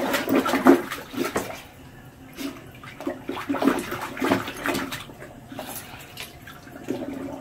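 Water splashing and sloshing in a toilet bowl as a pet laps and paddles at it, in irregular splashes that come and go.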